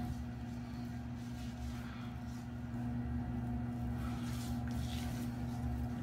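A steady low electrical hum, with a few faint, short scrapes of an iKon 102 safety razor drawn over lathered stubble on the neck.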